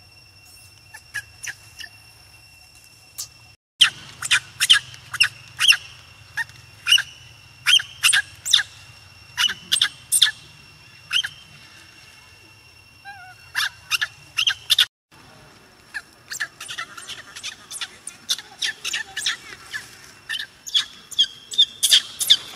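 Baby macaque crying: a rapid string of short, shrill squeals, a few at first and then coming thick and fast after about four seconds.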